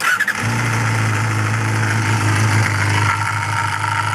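Honda Jade MC23's 250 cc inline-four MC14E engine, a high-mileage unit that makes an abnormal noise its owner is trying to cure, idling steadily. The sound comes in suddenly, wavers briefly, and settles within half a second.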